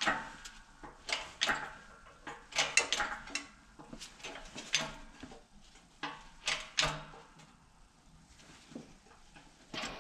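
Shop press with a hand-pumped hydraulic bottle jack being worked, giving irregular metallic clanks and rattles as the press is loaded against the old front wheel bearing in the steering knuckle. The clanks grow quieter near the end.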